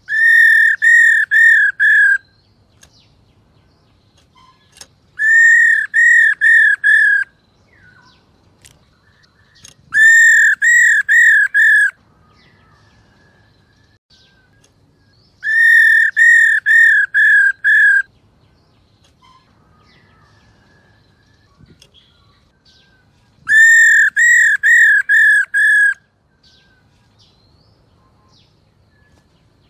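Female black-throated laughingthrush giving its 'ro' call, a call used to stir male birds into song. It comes in five bursts of about six quick repeated arching notes, each burst about two seconds long, with pauses of a few seconds between.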